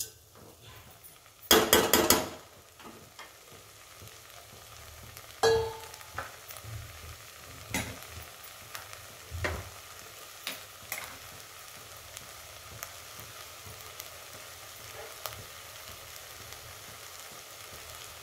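Sweet corn, tomato and onion frying in a steel pot with a steady soft sizzle. A steel spoon clatters against the pot for under a second about a second and a half in, the loudest sound. A single clank with a brief ring follows about five seconds in, and a few light ticks and pops come over the next several seconds.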